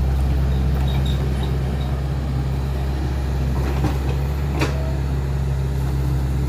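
Hitachi Zaxis 110 excavator's diesel engine running with a steady low hum, with a few light knocks about four seconds in.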